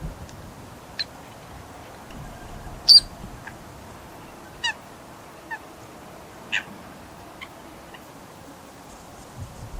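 Eurasian coot giving short, sharp calls, about six spread out singly, the loudest about three seconds in.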